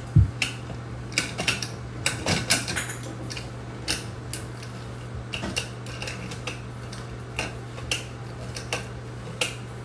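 Metal shower trim parts clinking and clicking as they are handled and fitted back onto the tub/shower valve, with a sharp knock right at the start and a flurry of clinks a second or two in, then scattered lighter clicks.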